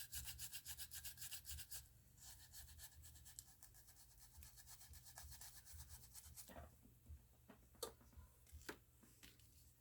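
Small cleaning brush scrubbing leftover adhesive off a phone's frame: faint, quick back-and-forth strokes, several a second, with a short break about two seconds in. The scrubbing stops about six and a half seconds in, leaving a few light ticks.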